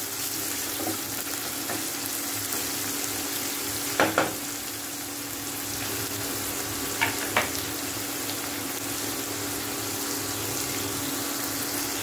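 Sliced onions sizzling steadily in hot oil in a non-stick kadhai as they soften. A wooden spatula knocks against the pan about four seconds in and twice more a little after seven seconds.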